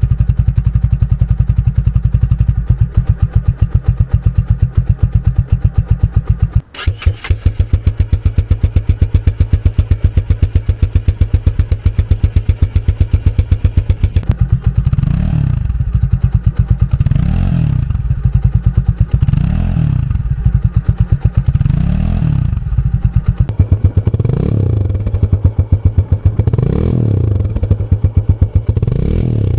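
Italika motorcycle engine idling steadily. There is a brief break in the sound about seven seconds in. From about halfway on the engine is revved in repeated throttle blips, roughly one every two seconds.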